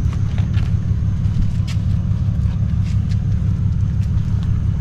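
Steady low rumble of an idling vehicle engine, with a few light clicks and taps over it.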